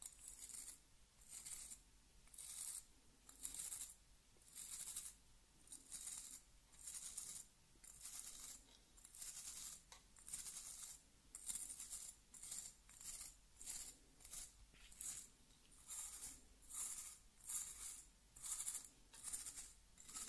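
Straight razor scraping through shaving foam in short, even strokes, about one a second: each a soft, high scratchy scrape.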